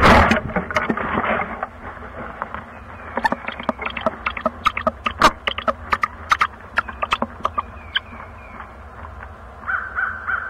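Barred owl flying into a wooden nest box with a loud rush of wing flutter, then a run of sharp clicks and scratches as the pair shift about on the nest. A few short, high calls come near the end.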